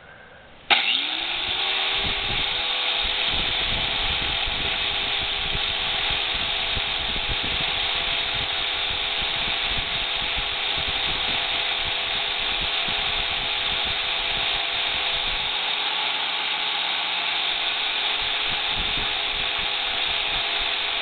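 Angle grinder with a 60-grit flap disc switching on about a second in, spinning up briefly, then running steadily while the dull tip of a steel center punch is ground against the disc to sharpen it.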